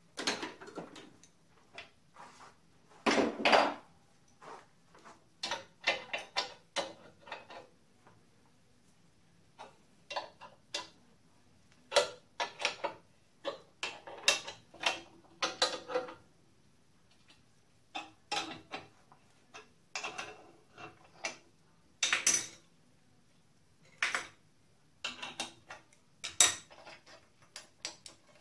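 Irregular metallic clinks, knocks and short rattles of steel clamping hardware and a spanner being handled on a milling machine's table as an exhaust manifold is unclamped, with a few louder clatters among them.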